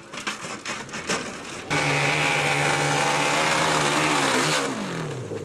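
Off-road motorcycle engine at high revs as a rider climbs a steep slope. It starts suddenly about a third of the way in, holds a steady pitch, then the revs fall away near the end. Before it, irregular crackles and knocks.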